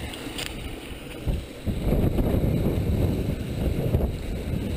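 Wind buffeting the microphone of a body-worn action camera carried by a running marathoner: an uneven low rumble that swells and fades, louder from about two seconds in.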